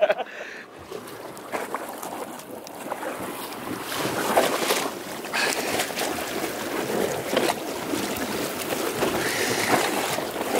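Wind buffeting the microphone over water sloshing and splashing against the side of a boat, louder after about four seconds.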